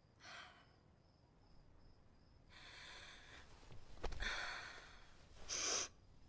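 A woman's breathing: four breaths, one short near the start, then a longer breath, a sharp gasp about four seconds in, and a quick final breath.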